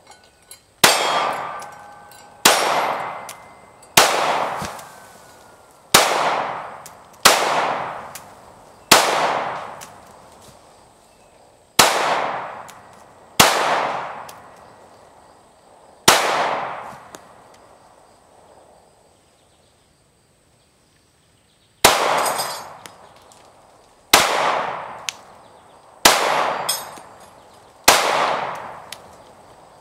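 Glock 19 Gen 4 9mm pistol firing thirteen single shots, one to three seconds apart, each with a long echoing tail, with a pause of about five seconds partway through.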